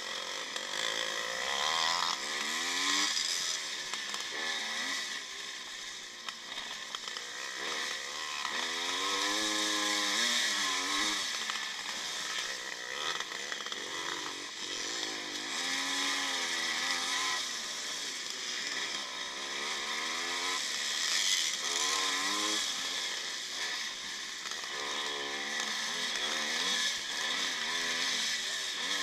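1955 Maico two-stroke single-cylinder motocross engine under race load, heard on board, its pitch climbing and dropping every couple of seconds as the throttle is opened and shut through the turns, with steady wind hiss over it.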